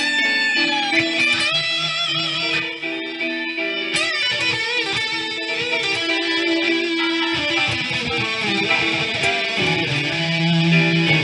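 Electric guitar played through an amplifier: a lead line of sustained notes, several bent and wavering with vibrato, over lower held notes.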